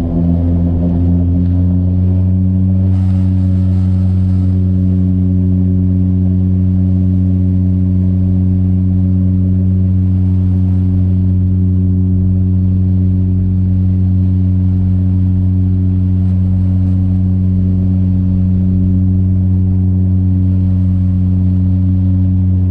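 Saab 340B's GE CT7-9B turboprop engines and propellers heard from inside the cabin while taxiing: a loud, steady drone with a strong low propeller tone. It rises slightly in pitch over the first couple of seconds, then holds steady.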